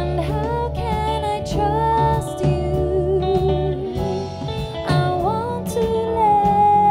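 Live band playing a dance-pop song: a woman singing held, wavering notes over electric guitar, bass guitar and drums.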